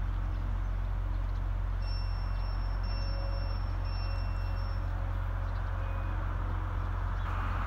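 Two-car diesel multiple unit's engines running at a station, a steady low rumble with hiss above it.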